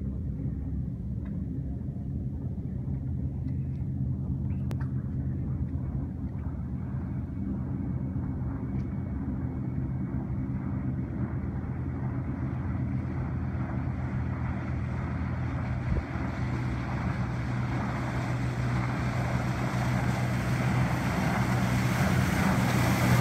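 Steady low hum of boat engines, with an Albin 28 motor cruiser running at speed growing louder as it approaches. The rush of its hull and wake builds over the last several seconds.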